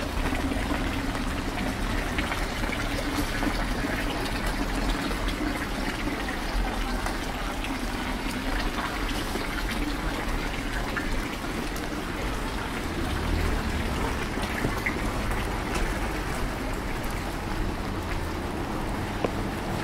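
Steady rain with water trickling and splashing, many small drops ticking throughout.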